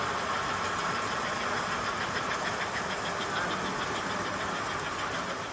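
N scale model train running on the layout: a steady mechanical running noise, with a light, quick ticking of about six a second for a couple of seconds in the middle.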